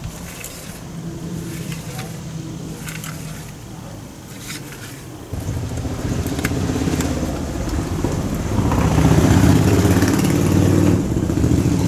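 An engine running steadily, coming in abruptly about five seconds in and growing louder about three seconds later. Before it there are scattered light clicks of plastic parts and connectors being handled.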